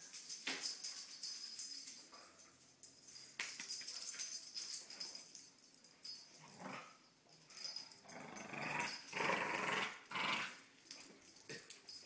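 Staffordshire bull terrier growling in play while tugging at a toy, in irregular bouts, loudest for a couple of seconds shortly before the end.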